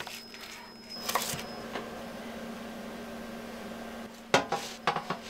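Kitchen knife cutting through a red onion onto a wooden cutting board, a couple of cuts about a second in, then a few sharp knocks near the end.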